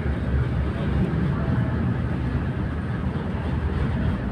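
Tram running along its track, heard from inside the passenger cabin: a steady low rumble of wheels on rails and running gear.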